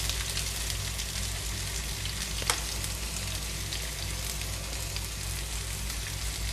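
Sliced shallots, dried red chillies and curry leaves sizzling steadily in hot coconut oil in a kadai, with a single sharp tap about two and a half seconds in.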